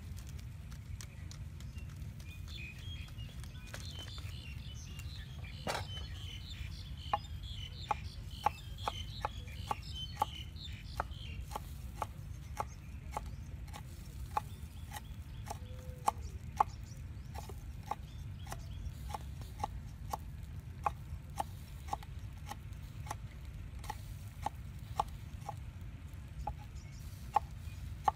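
Cleaver chopping on a wooden cutting board: sharp knocks at a steady pace of one to two a second from a few seconds in. High chirping calls fill the first half.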